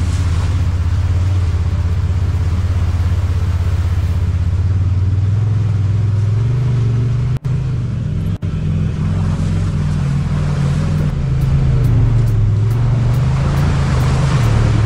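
Side-by-side UTV engine running under load on the trail, its pitch holding low at first, then rising and falling with the throttle. A rushing hiss builds over it near the end.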